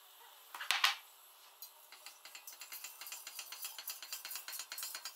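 Two sharp clinks about a second in as a bowl knocks against a metal saucepan, then a spoon stirring fructose into water in the saucepan, clicking against the pan in a quick, even rhythm that grows louder.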